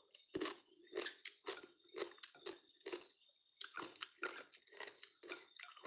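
A person biting into crunchy sliced food and chewing it with the mouth close to the microphone: one sharp bite near the start, then crisp crunches about two to three a second, with a brief pause about three seconds in.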